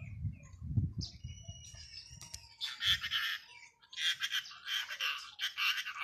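Rose-ringed parakeet giving a series of harsh, rasping screeches in short bursts about half a second long, packed close together in the second half, after a thin whistled note.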